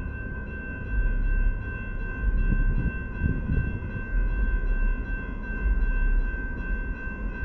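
Railroad crossing warning bell ringing steadily, with a low, uneven rumble underneath.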